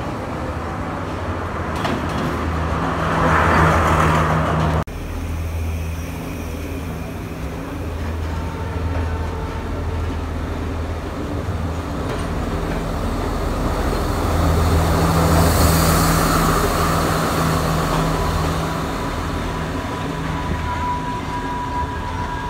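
Diesel train engines running with a steady low drone, with the rumble of a train on the rails. The sound breaks off abruptly about five seconds in and resumes, and from about eight seconds a thin steady high tone runs over it.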